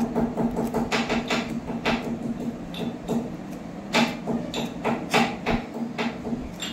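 Plastic comb scraping through long, tangled hair in about eight uneven strokes, over a steady low hum that pulses about five times a second.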